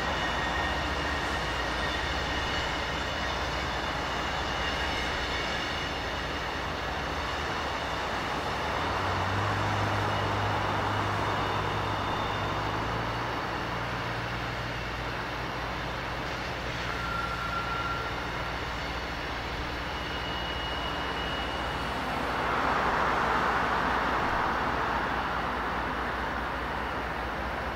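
Loaded coal train pulling out under power behind BNSF diesel locomotives, a deep engine drone under the rumble of the cars, with steady high-pitched wheel flange squeal as the cars work around a curve. The engine drone strengthens about a third of the way in, and the rolling noise swells near the end.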